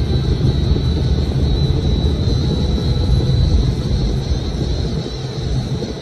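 Nissan Fairlady Z (Z34) V6 engine and road noise while driving: a steady low drone that eases slightly near the end, with a faint high wavering whine above it.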